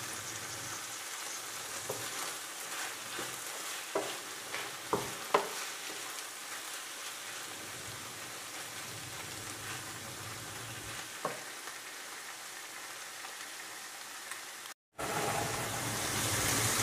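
Vegetables in tomato sauce sizzling in a frying pan, with a few short knocks as a wooden spatula stirs them. The sizzle cuts out for a moment near the end and comes back louder.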